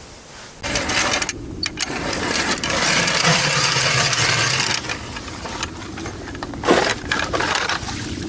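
Hand ice auger being cranked through the ice: a dense grinding, scraping noise of the blades cutting ice, loudest in the first few seconds, with a sharp knock about two-thirds of the way through.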